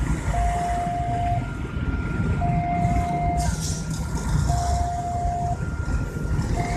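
Electronic warning beep, one steady tone about a second long repeating about every two seconds, over the low rumble of a dump truck's engine running.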